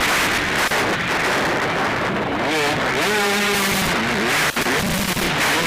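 Motocross bikes' engines revving up and down as they race past, buried in a heavy rush of distorted noise. The engine note shows most clearly around the middle, rising and falling.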